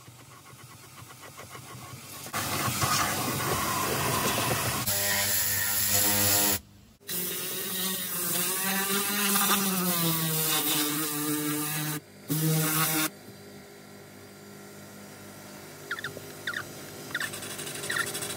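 A small electric motor whining, its pitch sliding up and down, cut off abruptly twice. Near the end it is quieter, with a few sharp clicks of a spray bottle's trigger as cleaner is sprayed.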